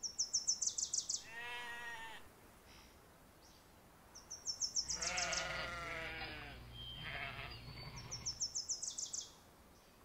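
Sheep bleating: two long wavering bleats and a shorter third, with a songbird's quick high trill repeating three times between them.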